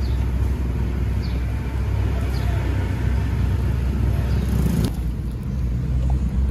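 Gas wok burner running with a steady low rumble under the hiss of food sizzling in the wok, with a few light metallic clicks; the sizzle thins out about five seconds in.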